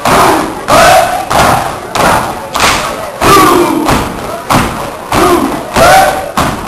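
Step team stomping in unison on a stage floor, a sharp thud every half second to a second, with short group shouts in between.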